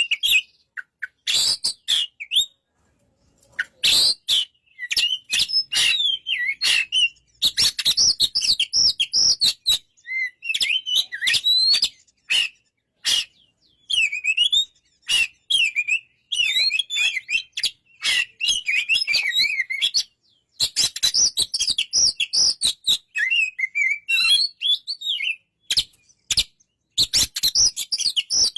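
Oriental magpie-robin (kacer) singing: a long run of varied whistled phrases and rapid chirps mixed with sharp clicking notes, broken by a few short pauses.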